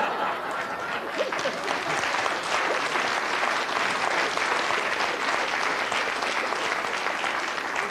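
Studio audience applauding, a dense steady clapping with some laughter mixed in at the start.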